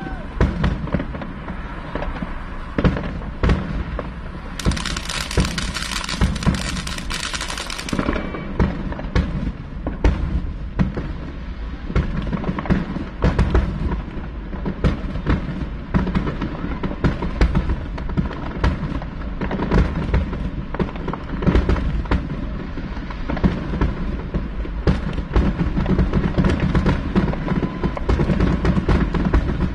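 Aerial fireworks going off in a steady barrage of bangs and pops, several a second at times, over a continuous low rumble. A loud hiss joins in from about four and a half to eight seconds in.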